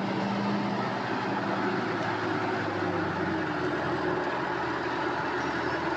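Excavator's diesel engine running steadily, its note shifting slightly partway through.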